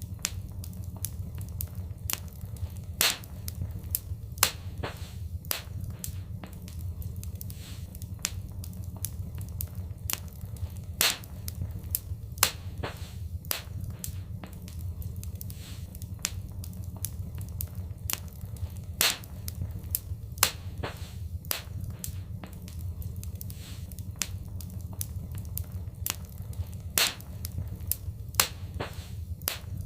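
Wood fire in a fireplace crackling: irregular sharp pops and snaps, a few much louder than the rest, over a steady low rumble.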